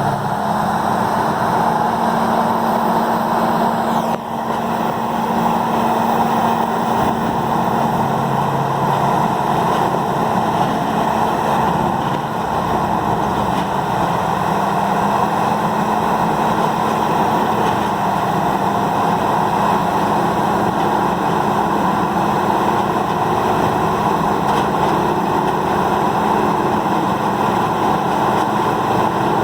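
Peterson 5710D horizontal grinder running: a steady, loud diesel engine drone mixed with the dense noise of material being ground, with a brief dip about four seconds in.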